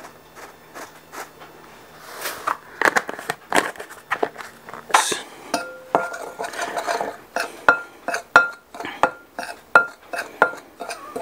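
A metal spoon stirring dry masa harina and salt in a glass mixing bowl. It scrapes through the flour at first, then clinks against the glass about every 0.7 seconds, the bowl ringing briefly after each clink.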